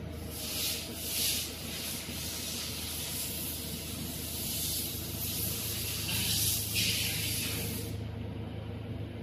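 A high hissing noise that swells and fades several times, then stops shortly before the end, over a low steady hum.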